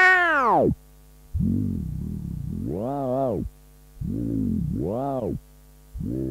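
Modular synthesizer tones played through a walkman-based Eurorack module: a held note slides down in pitch and dies out, then after a pause come three swooping notes that rise and fall in pitch, with gaps between them. A steady mains hum lies underneath throughout.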